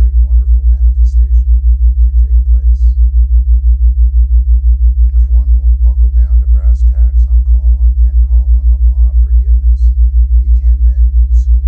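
A loud low tone throbbing evenly about five times a second, a theta-wave pulse meant to draw the listener into a theta brain state. A faint voice is speaking underneath it.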